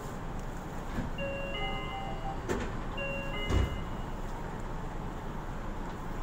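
Yui Rail monorail door-closing chime: a short electronic chime that sounds twice. A knock comes between the two chimes, and a heavier thud about three and a half seconds in as the doors shut, over the train's steady background noise.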